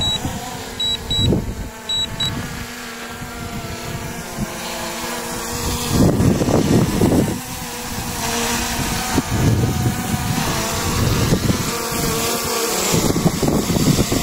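DJI Mini 3 Pro quadcopter hovering low nearby, its propellers giving a steady hum, with gusts of wind buffeting the microphone. About a second in, four short high beeps sound.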